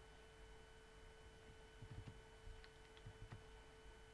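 Near silence: room tone with a steady faint hum and a few faint clicks about two to three seconds in.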